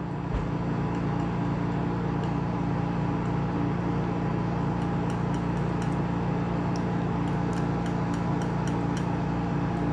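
Steady mechanical hum with a few fixed tones, with faint short ticks and scrapes from about halfway through as a palette knife mixes oil paint on the palette.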